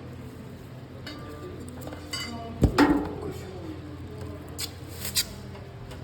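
Knocks, clicks and clatter of parts being handled on a large ceiling-suspended air conditioner, over a low steady hum. The loudest is a single knock with a short ring about two and a half seconds in, with lighter clicks before it and two sharp clicks near the end.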